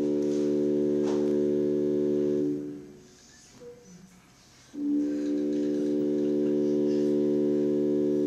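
A low, steady held note with a rich, organ-like tone, sounded as stage music: it holds for about three seconds, breaks off, and comes back about two seconds later for several more seconds.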